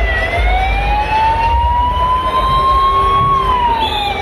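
Ambulance siren wailing: its pitch climbs slowly for about three seconds, then drops quickly near the end, over a low rumble.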